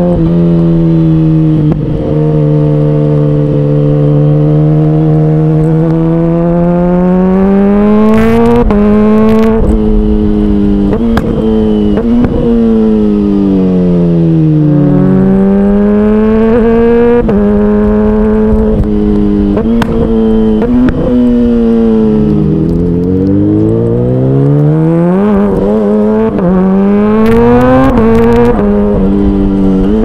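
Kawasaki Ninja H2's supercharged inline-four engine under way, heard from the rider's seat. It runs steadily for about six seconds, then revs up and drops in pitch at a gear change. Its pitch falls and rises several more times as the bike slows and accelerates again.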